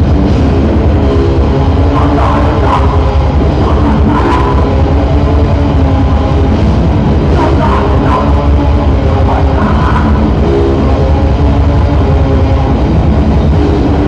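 Heavy metal band playing live: loud distorted electric guitars, bass and fast drums, with bursts of shouted vocals every few seconds.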